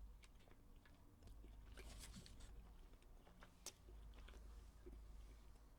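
Faint chewing and small wet mouth clicks of a person eating, barely above room tone, with one sharper click a little past halfway.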